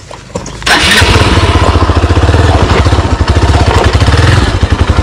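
Dirt-bike engine starting suddenly to run hard on the throttle about two-thirds of a second in, then held at high revs: a motorcycle being powered forward while stuck on a rocky climb, with others pushing it.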